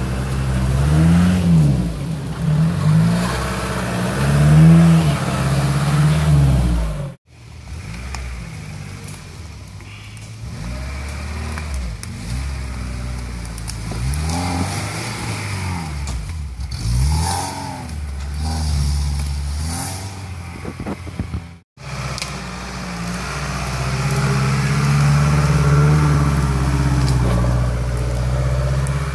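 Engines of off-road 4x4s, a UAZ and a Lada Niva, revving hard under load in mud, the pitch rising and falling again and again. The sound drops out briefly twice, about 7 and 22 seconds in, where one clip cuts to the next.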